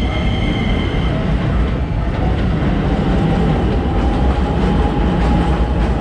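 Train passing a level crossing: a steady heavy rumble with wheels clattering over the rail joints. A high, steady ringing tone cuts off about a second in.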